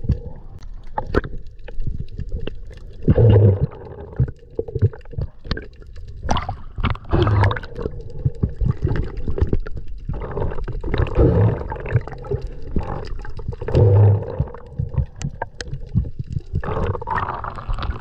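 Muffled water sloshing and gurgling heard by a camera held just below the surface, with small clicks and a deeper surge every three to four seconds.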